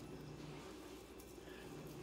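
Faint soft squishing of raw ground meat being rolled into meatballs between the palms, over a steady low hum.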